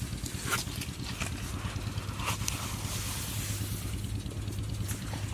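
Scattered small wet clicks and crackles from mud and muddy water in a dug-out hole, over a steady low hum.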